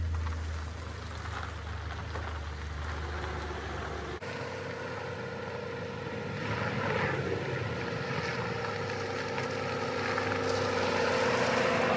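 Ford F-150 pickup's engine running at low speed as the truck moves off, then, after an abrupt change about four seconds in, the truck's engine and tyres drawing closer and growing louder as it pulls up.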